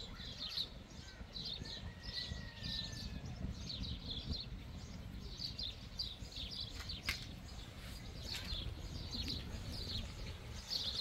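Small birds chirping in quick repeated bursts over a low steady rumble, with a few sharp crackles from a wood fire burning in an open cinder-block hearth.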